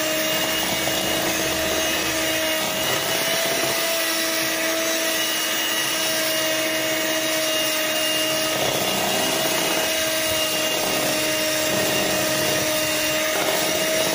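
Small electric hand mixer running steadily at one even pitch, its beaters whirring through brownie batter in a bowl.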